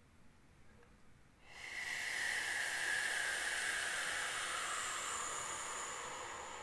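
A long exhale pushed out through the mouth as a steady 'shh' hiss in a yoga breathing exercise. It starts abruptly about a second and a half in, sinks slowly in pitch and fades gradually.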